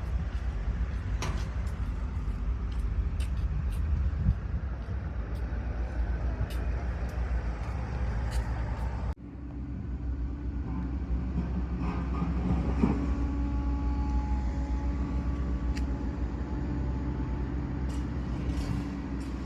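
Heavy machine engine running steadily, a deep rumble with scattered clicks and clanks. The sound breaks off suddenly about nine seconds in, then carries on with a steadier hum.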